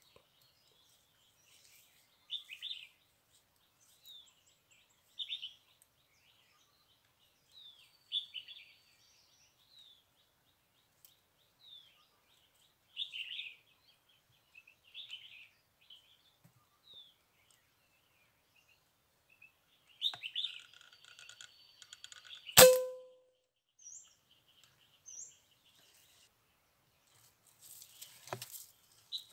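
Small birds chirping in short calls every second or two, with a burst of calls shortly before a single sharp crack of a PCP air rifle firing about 22 seconds in, which leaves a brief ringing tone. A short rustle comes near the end.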